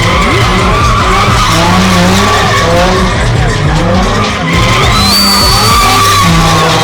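Nissan 350Z's V6 engine revving hard up and down with tyres squealing as the car is spun and drifted. A higher squeal rises about five seconds in.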